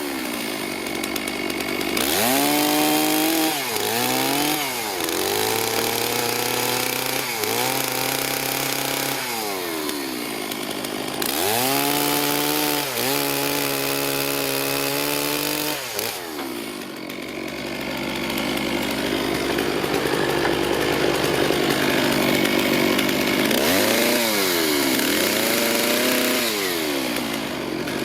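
Two-stroke chainsaw cutting firewood: it revs up into the wood and drops back toward idle several times. There is a longer spell at low revs in the middle before it revs up again near the end.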